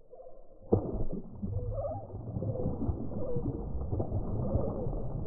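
A bass striking a worm at the water's surface, heard as a slowed-down replay: a sudden splash about 0.7 seconds in, then a deep, muffled churning of water with slow, drawn-out warbling tones.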